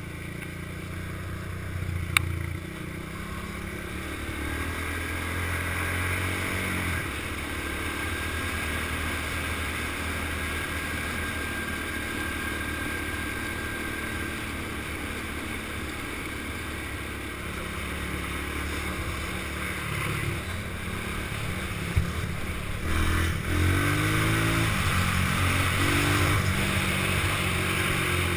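Small single-cylinder all-terrain vehicle engine running under way on pavement, with wind rushing over the microphone. The engine note steps up and down as it changes gear, and near the end it climbs in pitch several times in quick succession as it accelerates. A sharp click comes a couple of seconds in.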